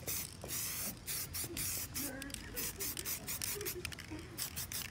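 Aerosol spray paint can hissing in quick short blasts over a stencil, several bursts a second.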